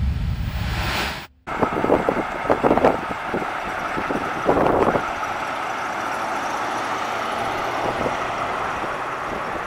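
Chevrolet Corvette's 5.7-litre V8 running as the car drives slowly by and pulls away, after a whooshing intro sound cuts off just over a second in.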